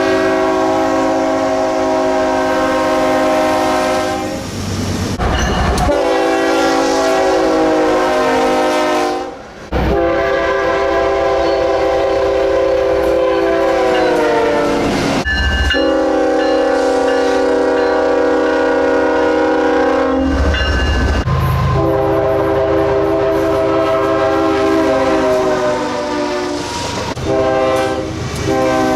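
Nathan Airchime K5HL five-chime locomotive horns sounding a run of long blasts, one after another with brief breaks. In the middle blast the chord slides down in pitch as the locomotive passes. A few short blasts come near the end.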